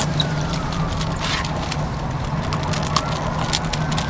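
Johnson V6 outboard motor idling with a steady low hum, under a noisy wash of wind and water, with a few scattered sharp clicks and knocks.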